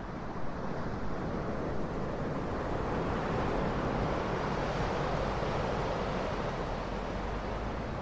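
Ocean surf, a wave swelling up to a peak about halfway through and easing off near the end.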